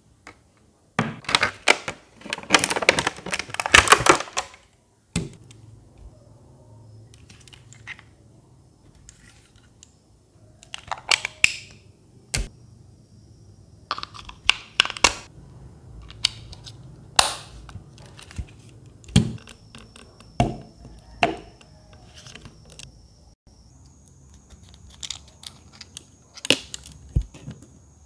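Hands handling a small plastic handheld fan and its battery: a few seconds of crinkling and rustling near the start, then a series of separate clicks and taps as the battery is pressed into the compartment and the plastic parts are fitted.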